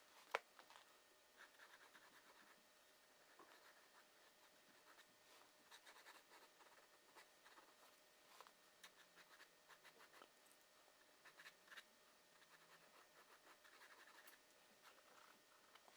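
Faint scratching strokes of a drawing tool on paper, coming in short irregular runs, with one sharp tap about half a second in.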